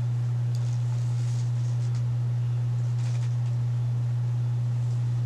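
A steady low hum at a single pitch, with faint soft rustles of hair being handled.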